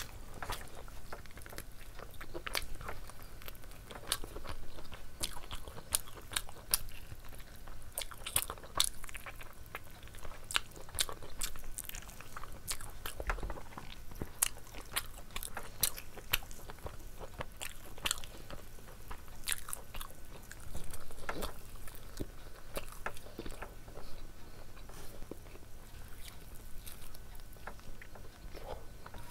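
Close-up eating sounds of a whole chicken curry with rice eaten by hand: chewing and biting, and chicken meat being torn apart, heard as a steady run of sharp, irregular clicks.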